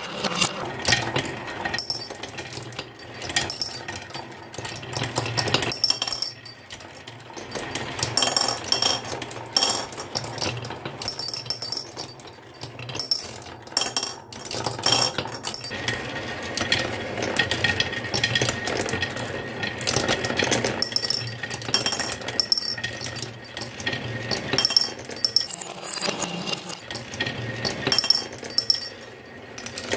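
Marbles rolling and clattering down a wooden marble run: a continuous rapid rattle of clicks and knocks, with short bright clinks ringing out now and then.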